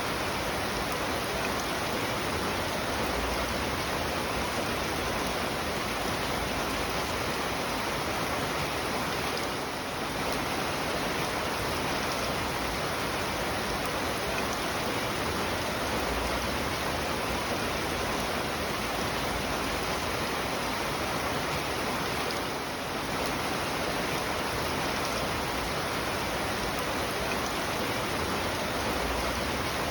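Steady rain falling, a dense even hiss with no single drops standing out, dipping slightly for a moment about ten seconds in and again near twenty-three seconds.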